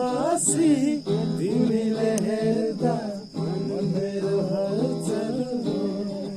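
Background music: an instrumental stretch of a Nepali song with a melody over a steady accompaniment.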